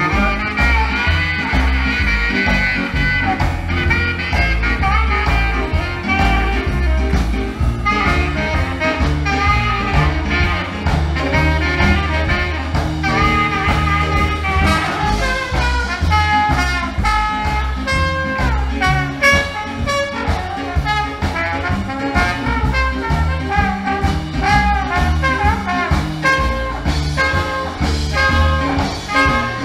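Live swing band playing an instrumental passage, with trumpet and saxophone over upright bass and drums and a steady beat.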